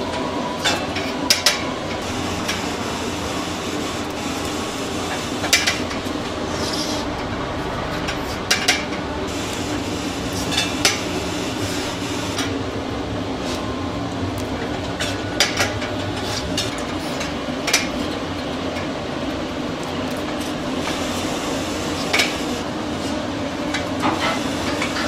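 Scattered sharp metal clinks, about a dozen, as whole raw chickens are threaded onto a long steel rotisserie spit and the spit knocks against its metal supports, over a steady mechanical hum.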